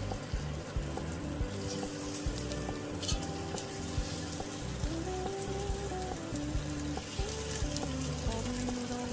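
Hot oil sizzling as flour-coated oxtail pieces fry in a cast-iron Dutch oven, with scattered light clicks, under background music.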